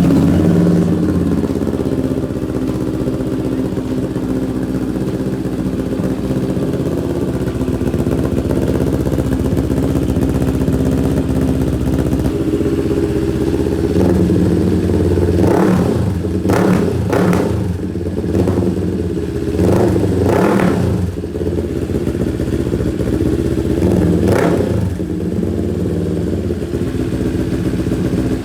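CFMoto 700 CL-X Sport's parallel-twin engine, just started, idling through an SC-Project slip-on exhaust with a resonator mid-pipe in place of the catalytic converter. From about halfway it is blipped half a dozen times in quick succession, then once more near the end, dropping back to idle each time.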